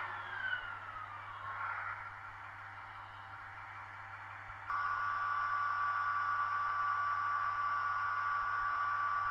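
Sound from an H0-scale model of an ÖBB 2043 diesel locomotive: a falling whine over the first second and a half, then a quieter stretch. A little after halfway a steady high-pitched tone starts suddenly and holds, with a faint low hum underneath.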